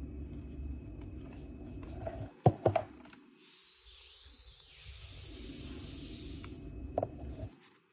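Handling noise from an aluminium-cased pocket Geiger counter being picked up and moved on a table: two sharp knocks close together about two and a half seconds in, a steady hiss for a few seconds, then another knock near the end.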